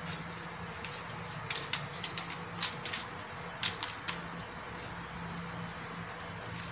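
Crisp crackling and rustling of a banana leaf and aluminium foil as the leaf is folded over and pressed down by hand. A run of sharp crackles falls from about one to four seconds in, over a steady low hum.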